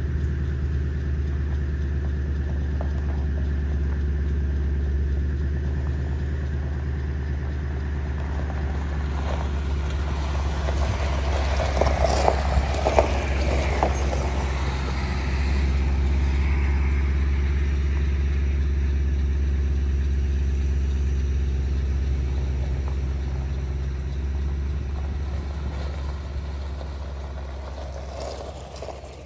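A truck driving: steady engine and road hum, with a few sharp clicks and knocks about twelve seconds in, fading out near the end.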